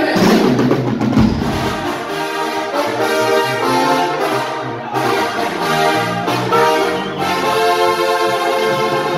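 Brass band music, with trumpets and trombones playing held notes and a melody; a loud crash of noise sounds at the start.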